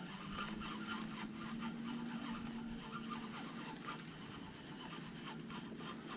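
Fishing reel being wound while a lure is retrieved: a faint, steady whirr with quick, light ticking.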